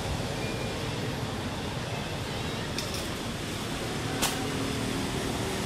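Steady outdoor background noise with a faint low hum, broken by a sharp click a little after four seconds in.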